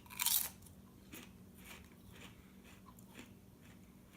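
Biting into a seaweed-wrapped potato chip with one loud crunch, then chewing it with fainter crunches about twice a second.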